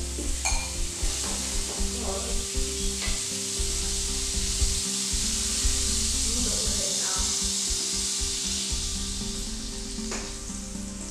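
Pancake batter sizzling in melted vegan butter in a hot frying pan as it is poured in from a mixing bowl. The sizzle swells about three to four seconds in and eases a little near the end.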